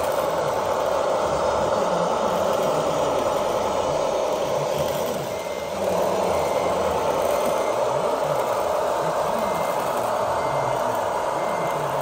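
Radio-controlled construction machines running: a steady whir of their motors and drive, with a reversing beeper sounding about once a second from about halfway through.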